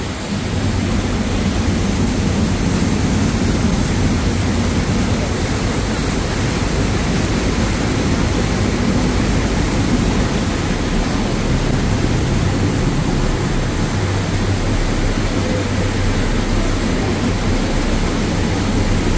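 Passenger ferry's engines running steadily, a constant low drone under the continuous rush of water churned past the hull.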